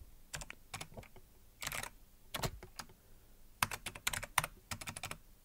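Typing on a computer keyboard: irregular keystrokes in small clusters with short pauses between them.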